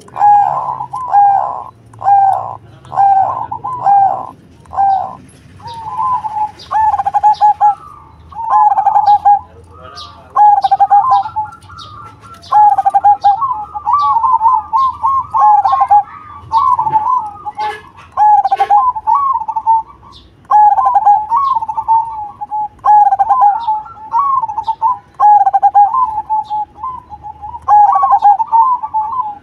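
Zebra dove (perkutut) cooing. It opens with a regular run of short rising-and-falling coos about two a second, then sings its repeated song phrases of quick staccato coos every couple of seconds.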